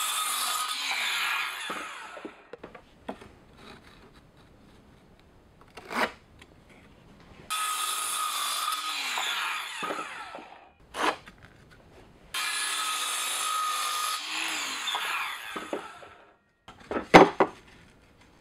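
A cordless circular saw crosscuts a cedar fence board three times. The first cut is already running at the start, and each lasts about three seconds and ends with a falling whine as the blade spins down. Short wooden knocks come between the cuts, and the loudest cluster falls near the end.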